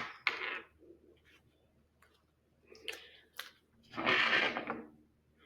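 IV supplies being handled on a table: a sharp click at the start, a few light clicks around three seconds in, and a longer rustle of plastic packaging about four seconds in.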